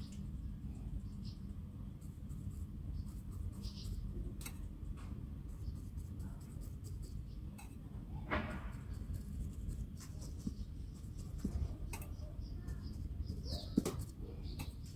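Faint, scattered light taps and clicks of small objects being handled, over a low steady hum.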